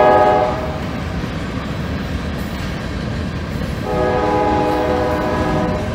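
GE B36-7 diesel locomotive's horn sounding: the end of one blast in the first half second, then a steady blast of about two seconds from about four seconds in. Underneath is the continuous rumble and clatter of loaded covered hopper cars rolling over jointed track through a grade crossing.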